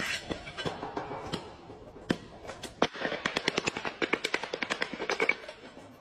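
A hand-held block tapping floor tiles down into fresh adhesive: scattered knocks at first, then a fast, even run of about six or seven taps a second for a couple of seconds.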